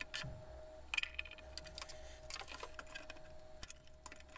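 Scattered light clicks and taps of a screwdriver and aluminium enclosure panels being handled, over a faint steady hum.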